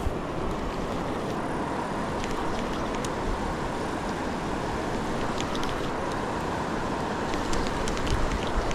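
Steady rushing of the fast-flowing Seti River, with a few faint clicks over it and some low thumps near the end.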